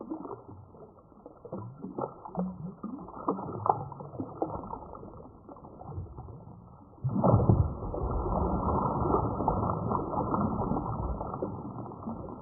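A hooked fish thrashing at the surface close in by the bank: scattered small splashes at first, then a sudden burst of heavy, continuous splashing about seven seconds in that dies down near the end.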